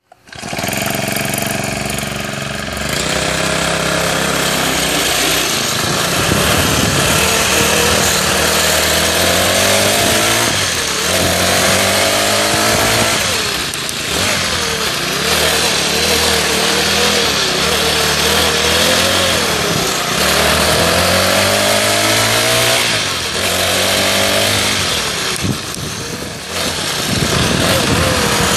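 Honda GX35 35cc four-stroke engine on a go-kart, running loud. Its pitch climbs over a couple of seconds and falls back, again and again, as it revs up and drops.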